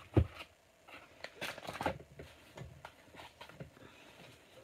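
Craft supplies being handled and packed into a cardboard box: one sharp knock just after the start, then scattered light clicks and rustling of plastic bags and card.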